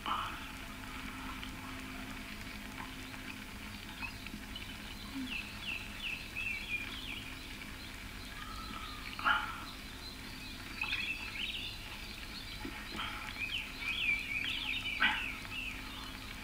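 Many short bird chirps and calls from a jungle soundtrack, with a steady low hum beneath. A few louder sharp sounds come about nine and fifteen seconds in.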